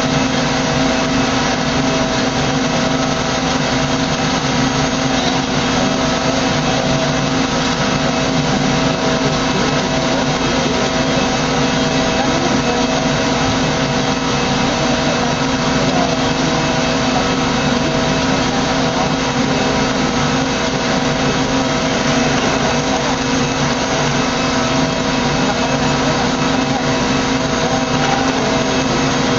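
Steady, unchanging mechanical hum and whine of jet airliner machinery on an airport apron, with several fixed tones over a low rumble.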